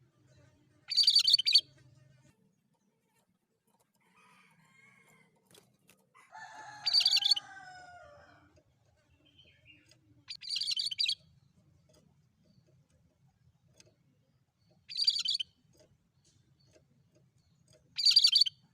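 Cucak kerinci calling: five short, harsh, high-pitched bursts of about half a second each, coming every three to four seconds. A lower, drawn-out call that falls in pitch runs under the second burst.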